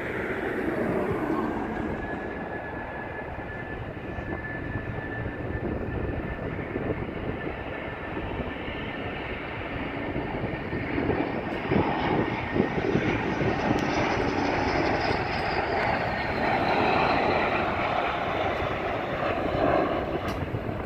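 F-15 fighter jets on landing approach: a steady jet whine, then the engine noise grows louder as one passes low. A high whine rises and then falls in pitch partway through.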